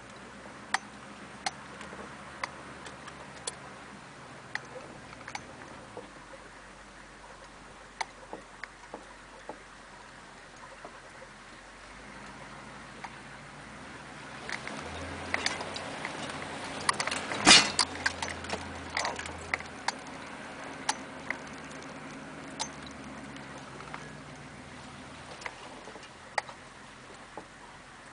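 Inside the cab of a lifted GMC diesel Suburban crawling over a rough dirt trail: the diesel engine runs at a low, steady hum while the body and loose items give scattered clicks and knocks over the bumps. About halfway through it gets rougher and louder, with one sharp knock.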